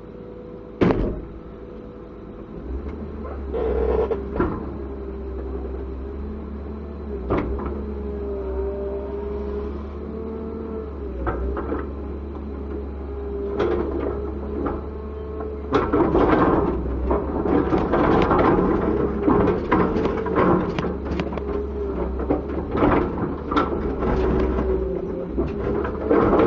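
Komatsu PC200-7 hydraulic excavator running, its diesel engine holding a steady low hum under a hydraulic whine that shifts in pitch. There are a few sharp knocks early on, and from about halfway through a dense run of knocks and clatter.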